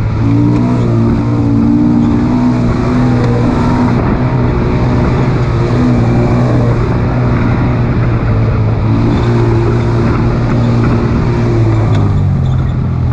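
A motor engine running steadily, its pitch shifting a little now and then.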